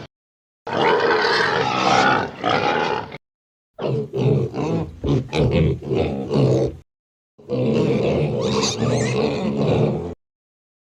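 Pigs grunting in three separate clips, each about three seconds long, divided by short gaps of dead silence. The middle clip is a quick string of short grunts.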